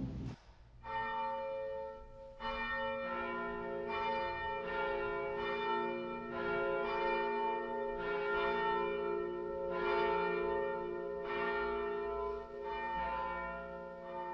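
Church bells ringing: several bells of different pitch struck one after another in a steady rhythm, each ringing on under the next, starting about a second in.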